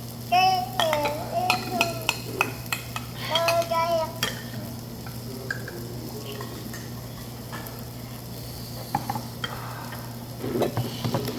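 Meat sizzling on a tabletop grill, with sharp clicks of utensils on metal and a steady low hum underneath. A toddler makes short high-pitched vocal sounds twice in the first four seconds.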